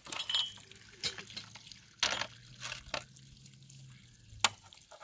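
Water from a hose pipe splashing and trickling over a rock, with irregular wet splashes and scrubbing as tea glasses and a tray are washed under it. A single sharp clink stands out near the end.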